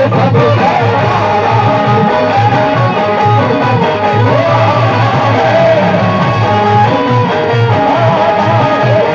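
Instrumental opening of a qawwali: a plucked-string melody over a repeating low beat, before the voice comes in.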